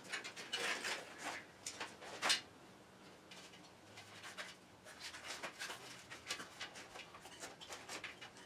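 Scattered soft rubbing and clicking as a bicycle tire is worked by hand onto the rim of an e-bike hub-motor wheel, with one sharper knock about two seconds in.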